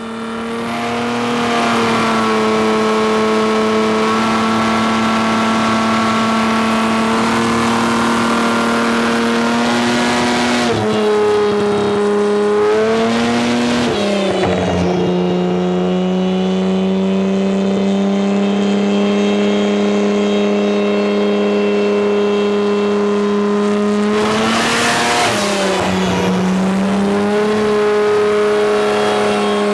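Kia Stinger 3.3-litre twin-turbo V6 running on a chassis dynamometer, held at a steady high engine speed with a constant pitch that sags and recovers twice.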